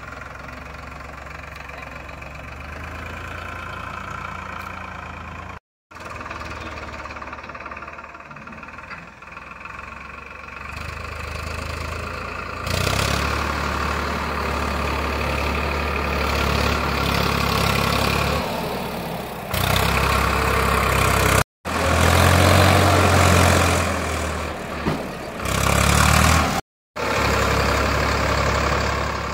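Tractor engine running steadily during ploughing, growing louder about halfway through as it works harder. The sound drops out completely three times for an instant.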